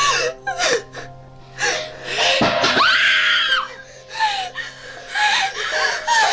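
Two women gasping, panting and whimpering in fright, with a drawn-out wavering cry a little past the middle. Under them runs a steady low drone of film score music, which drops out about five seconds in.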